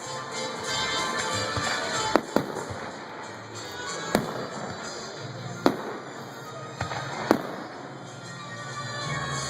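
Background music with several sharp, irregularly spaced cracks over it.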